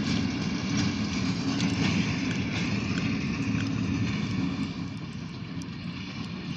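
Freight train of covered hopper cars rolling past, a steady low rumble of wheels on rail with a few small clicks, easing off a little in the last couple of seconds.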